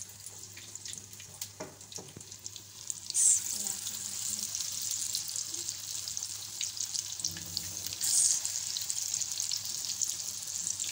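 Spoonfuls of potato pakora batter going into hot oil in a karahi and deep-frying, the oil sizzling and crackling. Quieter at first with a few light clicks, then a loud surge of sizzle about three seconds in and another around eight seconds as more batter goes in, with steady frying in between.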